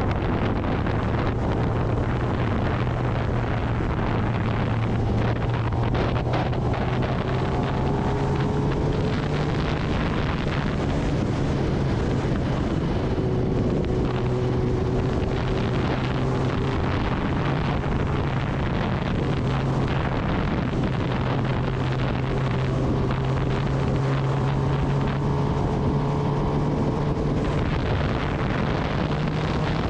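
Kawasaki Ninja ZX-10R's inline-four engine running steadily under way, its pitch drifting slowly up and down with the throttle, over a constant rush of wind noise on the microphone.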